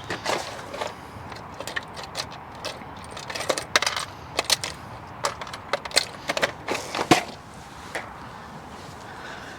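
Irregular clicks, knocks and light rattles of things being handled, busiest in the middle, with the loudest knock about seven seconds in.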